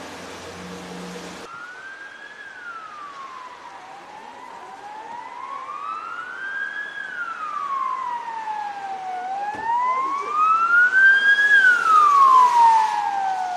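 Emergency vehicle siren wailing, slowly rising and falling in pitch with three peaks, growing louder toward the end. Before it, a steady hiss with a low hum cuts off about a second and a half in.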